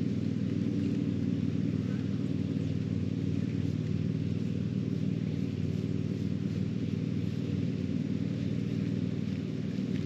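Steady low mechanical drone from a running motor, holding one pitch without rising or falling.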